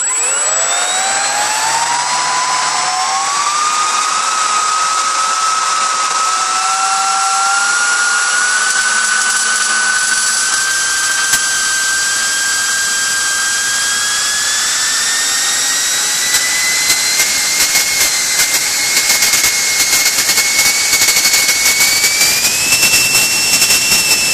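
Electric ducted fan with a 3D-printed seven-blade rotor and a Scorpion 2221-6 brushless motor spinning up to half throttle: a whine that rises quickly at the start, then climbs slowly in pitch, with a step up near the end, over a loud rush of air. The air rush turns rough and crackly in the second half.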